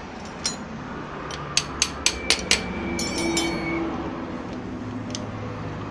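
Steel gearbox parts of a Honda CD70 engine clicking and clinking as the gear shaft is seated in the crankcase by hand. There is a quick run of sharp metallic taps, most between about one and a half and three and a half seconds in, and one of them leaves a brief ringing tone. A steady low hum runs underneath.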